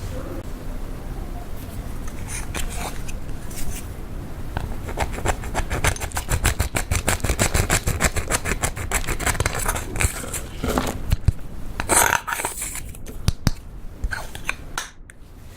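Butter slime being kneaded and squished by hand, giving a fast run of small clicks and crackles that is densest through the middle, with a few louder squelches near the end.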